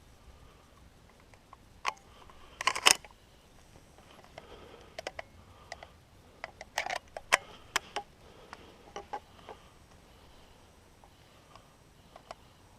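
Scattered light clicks and brief rustles close to the microphone, with a loud cluster about three seconds in and another near seven seconds.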